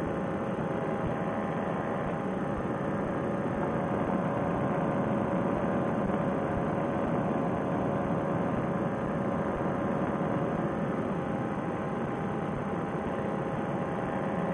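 Paramotor trike engine and propeller running steadily in cruising flight: a constant drone that holds one pitch throughout, picked up through a Bluetooth headset microphone.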